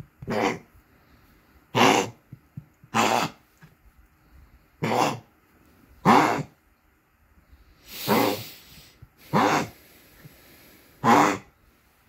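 A small dog coughing: about eight harsh coughs, one every second or two, several with a short rising note. She is being treated with enalapril and Lasix, the usual medicines for heart failure in dogs.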